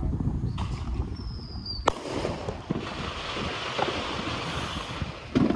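Backyard firework being set off: a short high whistle and a sharp crack about two seconds in, then a steady hiss of sparks for about three seconds, and a loud thump near the end.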